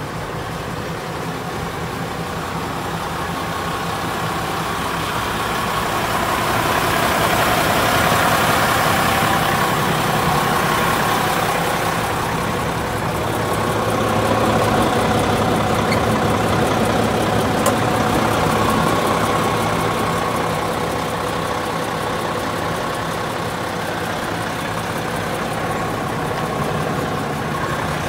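Hino Profia heavy truck's diesel engine idling steadily, growing louder through the middle of the stretch and easing off again.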